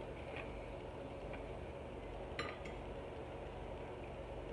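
A metal kitchen utensil clinks once against a dish with a short ring, about two and a half seconds in, after a few fainter ticks. A steady low hum runs underneath.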